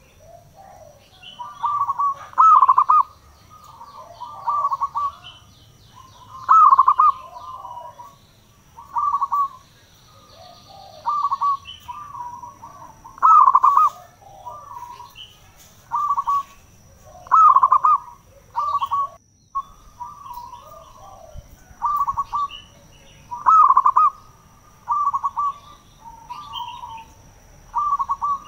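Zebra dove (perkutut) singing: short phrases of staccato cooing notes, repeated about every two seconds.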